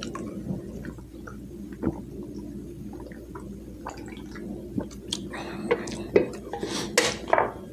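A person drinking from a tall can, swallowing with soft wet gulping and mouth sounds, and a run of sharper wet clicks and smacks from about five seconds in.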